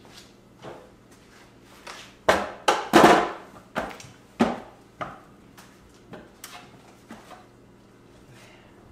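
Wooden boards knocking and clattering on a wooden workbench as they are handled and moved. A cluster of loud knocks comes about two to three seconds in, followed by lighter single knocks and bumps.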